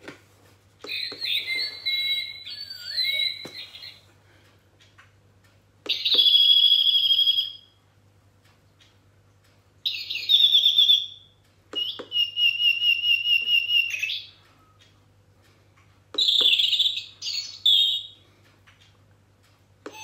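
A bird-sound wall clock playing its recorded bird songs one after another: about five short, high-pitched calls of one to three seconds each, with brief pauses between them.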